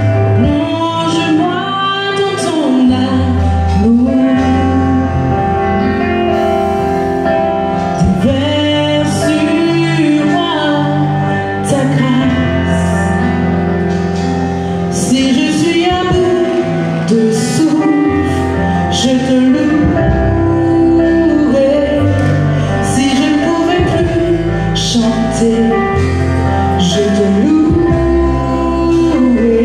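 A woman singing a worship song into a microphone with long, held notes, over instrumental accompaniment.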